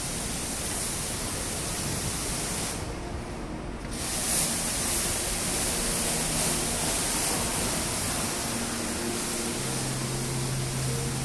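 Steady rushing wind on the phone's microphone along an open ship deck at night, briefly muffled about three seconds in. Faint music comes in during the second half.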